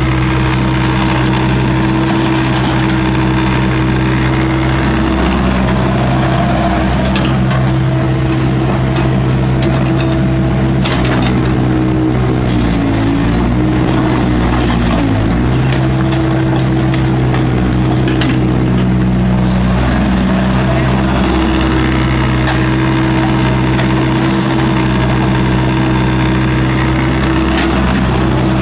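Kobelco SK50 mini excavator's diesel engine running steadily under hydraulic load while it digs and swings, its pitch dipping briefly about halfway through. A few sharp knocks of broken asphalt chunks in the bucket.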